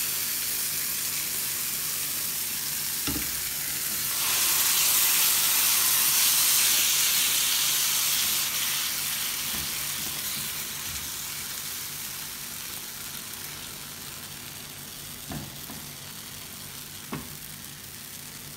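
Blended tomato, carrot and cashew purée sizzling in a hot frying pan of sautéed onion, ginger, garlic and spices as it is stirred with a silicone spatula. The sizzle swells about four seconds in and then slowly dies down as the sauce settles. A few light knocks come near the end.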